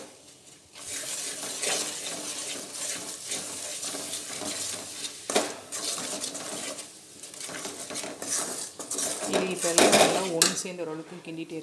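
A spoon stirring and scraping grated coconut through thick bubbling jaggery syrup in an aluminium kadai, with clinks and knocks against the pan, loudest about ten seconds in.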